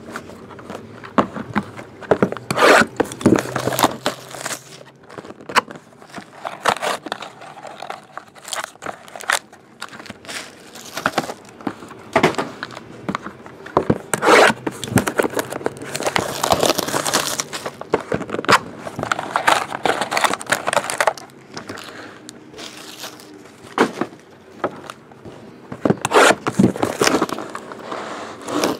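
Clear plastic shrink-wrap being torn and peeled off sealed trading-card boxes, crinkling and crackling in irregular bursts, with the cardboard boxes handled and scraped against each other.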